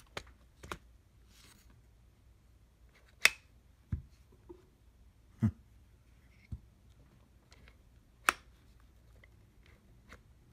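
Irregular sharp plastic clicks and taps from a handheld clamp meter being handled, its buttons pressed, about seven in all with the loudest about three seconds in and about eight seconds in.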